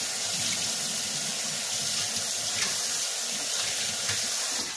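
Kitchen sink faucet running steadily while hands are washed under it, shut off suddenly near the end.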